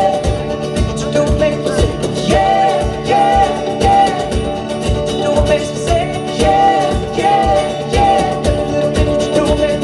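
Live pop-rock band playing during a sound check: a sung melody line over guitar and a steady drum beat of about two hits a second.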